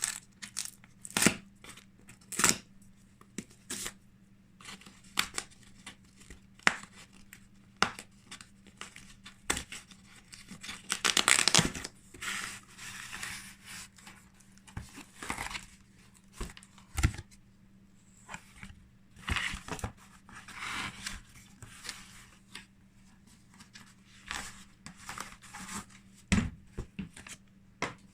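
A shipping package being opened by hand: irregular clicks and handling knocks, a longer stretch of tearing about eleven seconds in, then bursts of packaging and cloth being rustled and crinkled.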